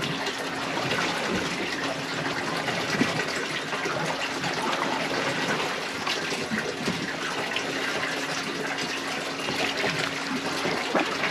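Water sloshing and splashing against a boat's hull, steady throughout with small irregular splashes, over a faint steady hum.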